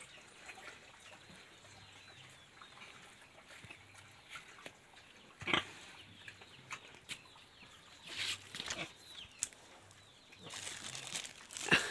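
Faint farmyard animal sounds from pigs in the sty, with a sharp knock about halfway through and rustling handling noise near the end.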